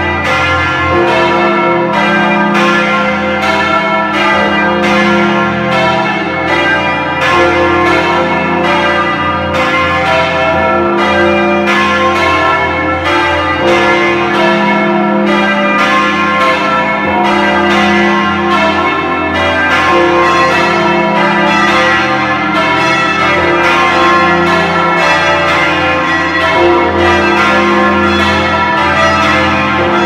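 A ring of Taylor church bells being rung full-circle in changes, heard from inside the bell chamber. A rapid, even succession of strikes runs over the low, lasting hum of the big bells.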